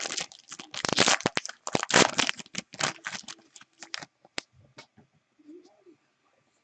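Foil trading-card pack wrapper being torn open and crinkled, a dense crackling for about three seconds, then thinning to a few light clicks of cards being handled.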